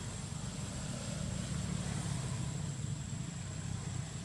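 A steady low engine-like hum runs throughout, with a thin, steady high-pitched whine above it.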